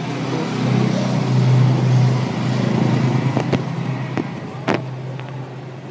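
A road vehicle's engine running close by with a steady low hum that swells and then fades away, as when a vehicle passes on the street. A few sharp clicks sound over it in the second half.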